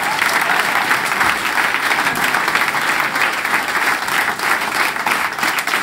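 Audience applauding steadily after a stand-up punchline.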